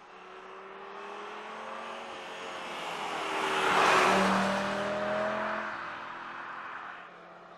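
Audi RS 3's turbocharged 2.5-litre five-cylinder engine as the car drives past: the engine note and tyre noise swell to a peak about four seconds in, then fade away.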